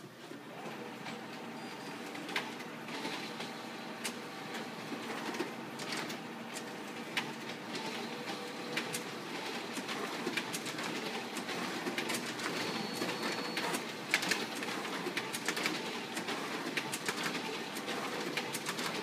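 Large office copier-printer with a paper finisher, starting up abruptly and running with a steady mechanical whir, faint hum tones and many irregular clicks and ticks from its paper-handling mechanism as it slowly works.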